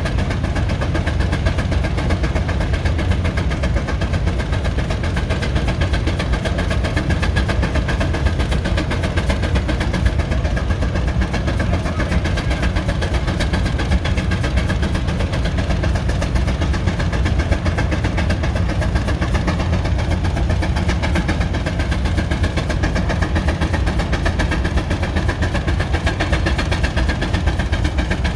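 Steady engine noise with a deep rumble, running evenly without a break.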